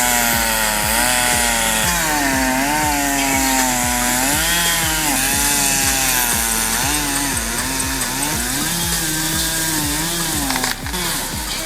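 Chainsaw running at high revs through a cut, its pitch dipping and recovering again and again as the chain bogs under load and frees. Regular low thumps about twice a second run underneath.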